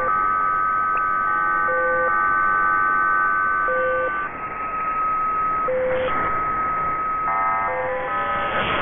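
Electronic soundtrack: held synthesizer tones that change pitch every few seconds over a hiss, with a short low beep about every two seconds and a whoosh about six seconds in and another near the end.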